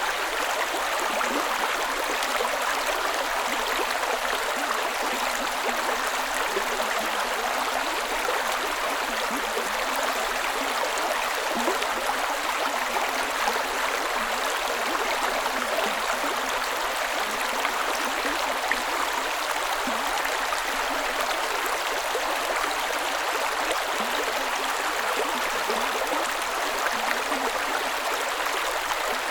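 A creek running over rocks: steady, even rushing and burbling of shallow flowing water.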